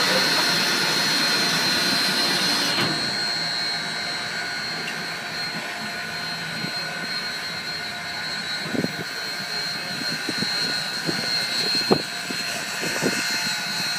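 Union Pacific No. 844, a 4-8-4 steam locomotive, giving off a steady hiss with a high whine. The hiss thins out abruptly about three seconds in, and a few light knocks come in the second half.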